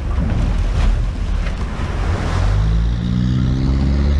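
Surf washing around a boat and its trailer, with wind on the microphone. About two and a half seconds in, the engine of the Toyota 4WD towing the trailer revs up and holds under load as it hauls the boat out of the water.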